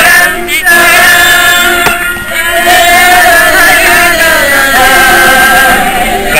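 Amateur group of men's and women's voices singing a French chanson together in unison, drawing out long notes with short breaks between phrases.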